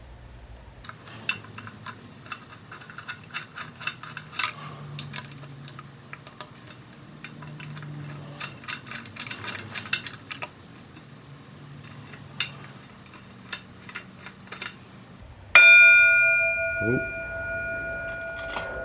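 Light metallic clicks and taps of parts and bolts being handled during throttle-body fitting. About three-quarters of the way in, a single bell-like chime rings out and fades slowly over a few seconds, a timer signalling that dinner is done.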